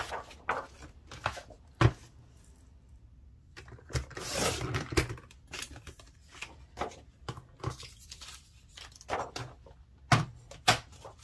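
Scrapbook paper being handled and cut into strips: a few sharp taps and clicks, with a rustling, swishing cutting sound about four seconds in.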